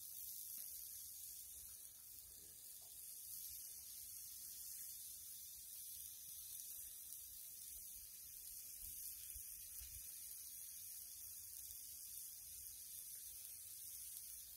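Faint, steady sizzle of a ball of ground beef cooking on a hot flat-top griddle.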